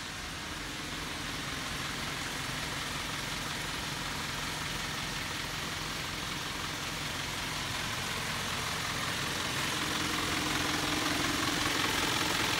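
Nissan Civilian bus diesel engine idling steadily, heard from inside the cabin, growing louder near the end.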